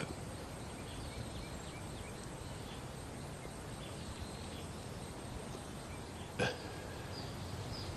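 Quiet background ambience: a steady hiss with faint scattered insect chirps, broken by one short burst of sound about six and a half seconds in.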